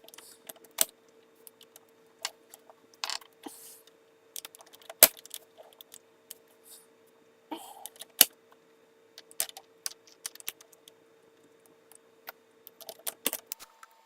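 Plastic pieces of a 4x4x4 puzzle cube clicking and knocking as corner pieces are pushed and wedged into place, in scattered irregular clicks. A faint steady hum runs underneath and stops near the end.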